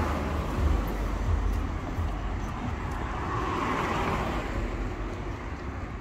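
Road traffic: a car passing, its tyre and engine noise swelling to a peak a few seconds in and then fading.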